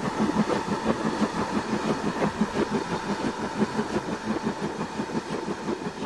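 Dubbed steam-train sound of a train running: a quick, regular beat of about five or six a second, with a faint steady tone above it.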